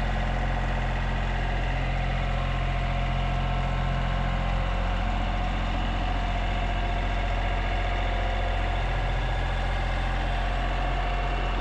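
Kioti CK3510 compact tractor's diesel engine idling steadily.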